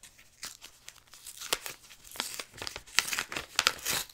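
A paper envelope being torn open by hand: a run of short rips and paper crinkles, sparse at first and getting denser and louder about a second and a half in.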